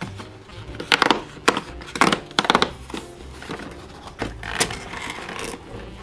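Perforated cardboard advent calendar door being torn open by hand: a string of sharp cracks and snaps of paperboard, then a longer rustling scrape about four seconds in as a small glass jar is worked out of its cardboard slot.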